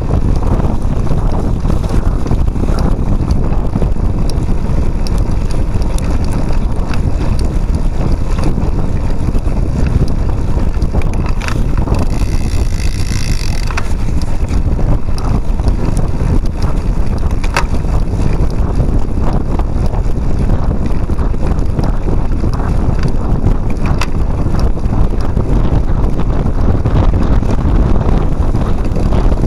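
Cyclocross bike ridden hard over rough ground with the camera on the handlebars: heavy wind buffeting on the microphone and a steady low rumble, with frequent rattles and knocks from the bike over bumps. A brief high squeal about twelve seconds in.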